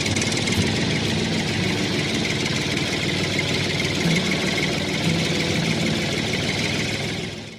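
Tractor engine running steadily, dying away briefly near the end.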